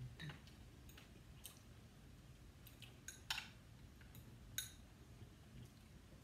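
Faint, sparse clicks and clinks of eating utensils (metal tongs and chopsticks) against plates and bowls at a dinner table, the loudest a little over three seconds in.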